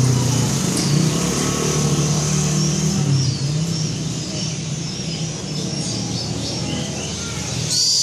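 Low, steady engine rumble like passing or idling traffic, with a short, loud, high hissing screech near the end from a young barn owl.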